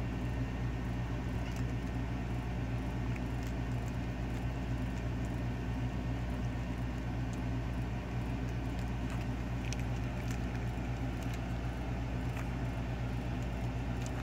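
Steady low mechanical hum with several fixed low tones, with a few faint light clicks and rustles over it.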